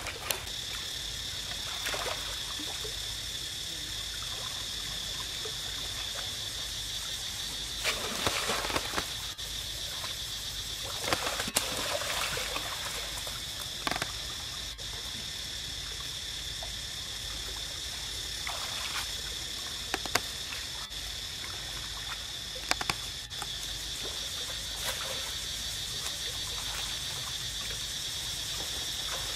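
Water trickling and splashing as macaques move through a shallow pool, with several sharper splashes. A steady high insect drone sounds behind the water.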